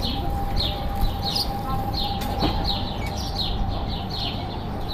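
House sparrows chirping: short, falling cheeps repeated two or three times a second.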